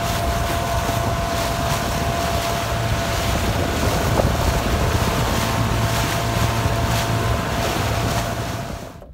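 Small outboard motor running at speed on an aluminium dinghy, with a steady thin whine over the engine and heavy wind buffeting the microphone. The sound drops away suddenly near the end.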